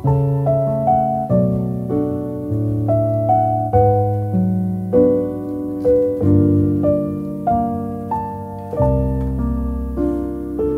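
Background piano music: a slow, gentle melody of struck notes that ring and fade, over low sustained bass notes.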